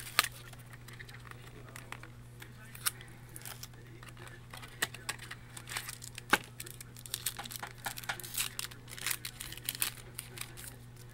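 Wrapper of an Upper Deck Prominent Cuts trading card pack crinkling and tearing as it is opened, in many short irregular crackles over a faint steady hum.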